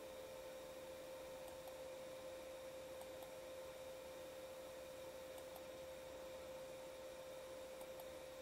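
A single steady electronic tone held at one pitch, like a sine wave, fairly quiet, with a few faint clicks.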